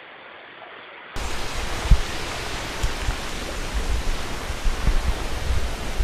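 A faint quiet hiss, then about a second in a loud, steady rushing noise cuts in, with irregular low thumps under it.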